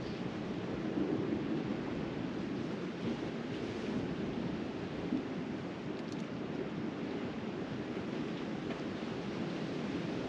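Sea surf washing steadily onto the shore, with wind buffeting the microphone.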